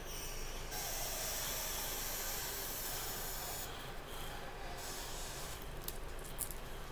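Foil wrapper of a chocolate Kiss crinkling as it is handled and unwrapped: a dense rustle for the first few seconds, then sparser crackles.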